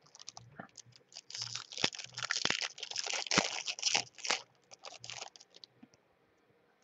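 Foil wrapper of a baseball trading-card pack being torn open and crumpled by hand: a dense crinkling for about three seconds, thinning to scattered lighter crinkles and ticks near the end.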